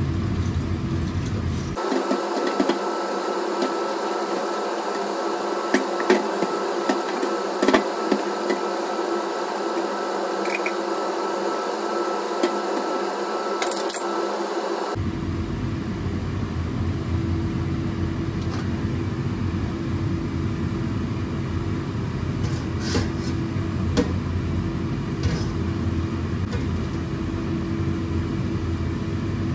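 A machine's steady hum with a constant low tone, with a few light clicks and knocks over it. The deep rumble under it drops out for a stretch near the start, then comes back.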